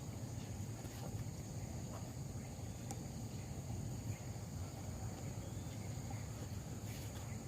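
Insects chirring steadily at a high pitch over a low rumble, with a few faint ticks.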